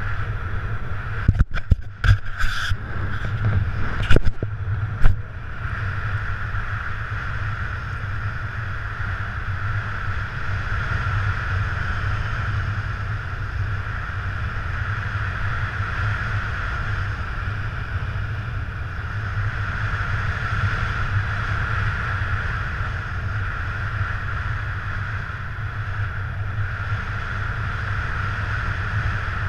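Steady rushing wind on the camera's microphone during paraglider flight, with a cluster of sharp knocks and clicks in the first five seconds, the loudest a little after four seconds.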